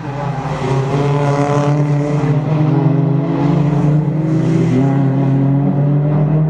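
Toyota Corolla Altis race car engine running as the car drives through a corner, its note shifting up and down in pitch.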